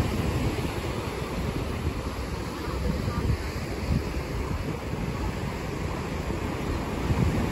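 Wind buffeting the microphone in low, uneven gusts, over the steady wash of ocean surf breaking on the shore.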